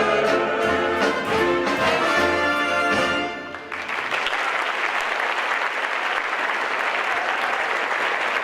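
The song's instrumental music plays to its final chord and stops about three and a half seconds in, and an audience then breaks into steady applause.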